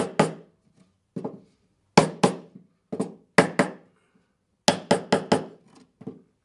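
A small claw hammer tapping an assembled wooden picture frame: about a dozen sharp knocks, mostly in quick pairs and short runs, knocking its mortise-and-tenon corner joints tight.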